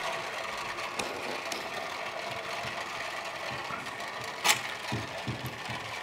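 Steady fine patter of water drops from a Kelvin's thunderstorm water dropper falling through foil-covered rings into foil pans of water, with one sharper click about four and a half seconds in.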